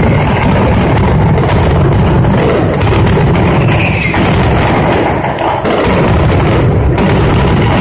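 Mascletà firecrackers (masclets) going off in a rapid, continuous barrage, the bangs so close together that they run into one loud, unbroken rumble.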